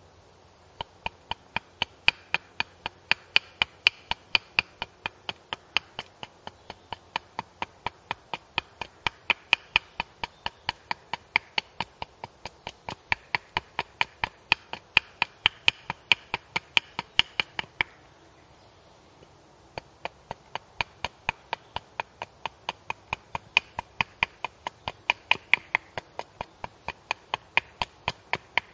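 Small hatchet, held short near its head, striking a wooden wedge blank on a chopping block in quick light chopping strokes, about three a second, as the wedge is tapered. The strokes stop for a couple of seconds partway through, then carry on.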